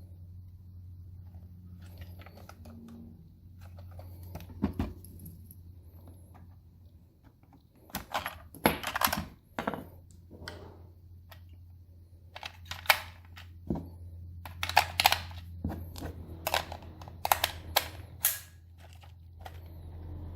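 Hard plastic toy parts being handled, giving irregular clicks, knocks and rattles that come in clusters through the middle and later part, over a low steady hum.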